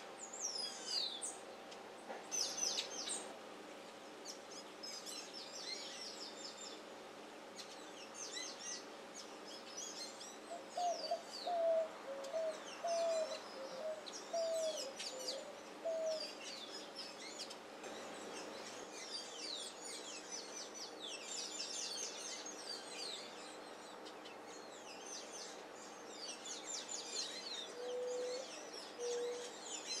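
Small songbirds chirping throughout in quick, high notes. A dove coos in a series of about eight short low notes from about ten seconds in, and gives a few more low coos near the end.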